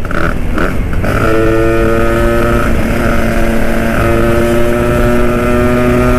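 A Vespa Sprint's two-stroke single-cylinder engine, fitted with an IDP three-port cylinder block, pulling at about 75–80 km/h with wind rushing past the microphone. About a second in, the engine settles into a steady drone, and its pitch steps up slightly about four seconds in.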